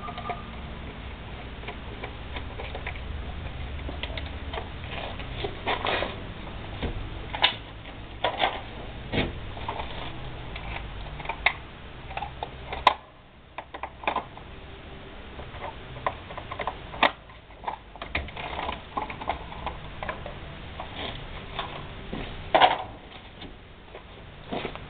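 Irregular clicks and light knocks of hand tools and metal parts being handled on a moped's steel frame, over a low steady hum.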